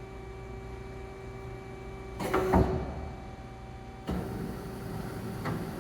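Steady machine hum with a few fixed tones. About two seconds in comes a brief, loud sliding clatter, and at about four seconds a louder, steady running noise starts up.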